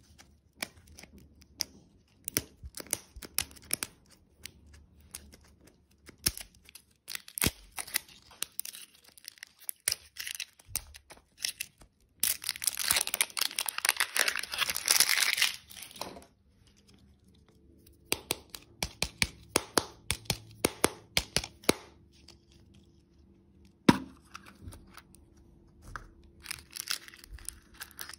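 Hands working hollow plastic toy-lollipop capsules open, with scattered sharp plastic clicks and taps. Wrapping is torn and crinkled for a few seconds around the middle, and one loud snap comes about two-thirds of the way through.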